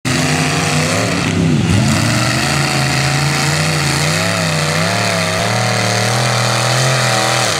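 Lifted Chevy Suburban's 454 big-block V8 under hard throttle, driving through deep mud on 48-inch tractor tires. The engine pitch drops sharply about a second and a half in, then climbs back and rises and falls with the throttle, dropping again near the end.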